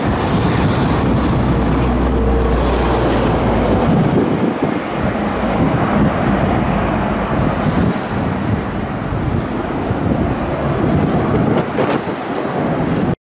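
Twin Williams FJ44 turbofan engines of a Cessna Citation CJ2+ business jet at takeoff power as it lifts off and climbs away, a steady rush of jet noise with wind buffeting the microphone. The sound eases slightly later on and cuts off abruptly at the very end.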